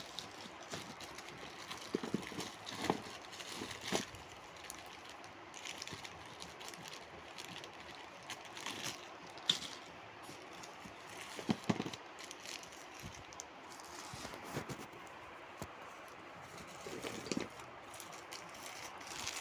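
Irregular light clicks, crackles and rustles of a parcel and its contents being handled and unpacked by hand.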